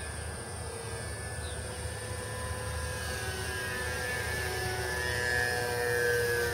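Battery-powered electric motor and propeller of a scratch-built RC plane in flight, a steady whine that grows louder as the plane passes close overhead near the end.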